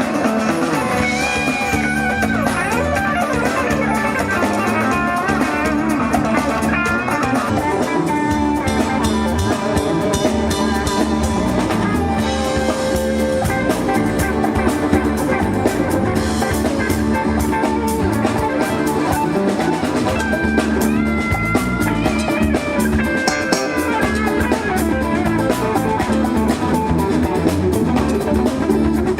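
Folk band playing live: guitar and drum kit at a steady level, with a melodic lead line running over them.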